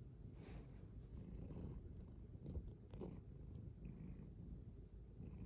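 Silver Bengal cat purring steadily, a low, even rumble heard up close inside an enclosed cat cave.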